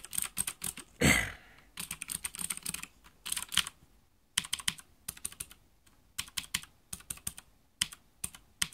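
Mechanical keyboard keys with clicky Cherry MX Green switches being pressed in quick runs of sharp clicks. The keycaps are fitted with rubber O-ring bumpers, so the plastic keycap does not hit the plastic bottom and the bottom-out clack is damped. One brief, louder noise sounds about a second in.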